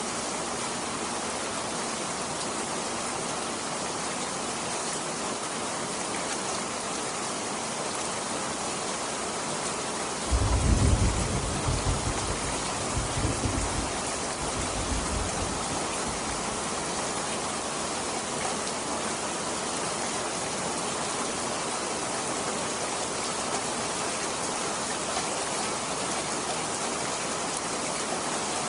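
Steady rain falling, with a thunderclap that breaks in suddenly about ten seconds in and rumbles on for five or six seconds before fading back under the rain. The thunder is the loudest sound.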